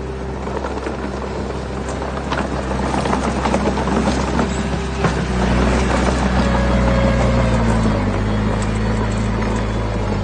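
Diesel engine of heavy earthmoving machinery running steadily, with a dense clatter of rocks through the first half, and a small change in the engine's pitch after about six seconds.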